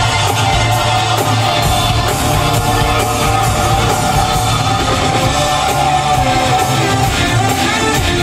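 Live orchestra and rock band playing a loud, sustained passage of music, heard through the echo of a large arena.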